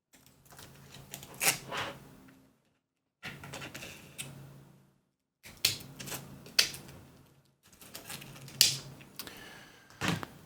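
Scissors snipping and handling textured adhesive grip tape: scattered sharp clicks in four short bursts with brief silences between them.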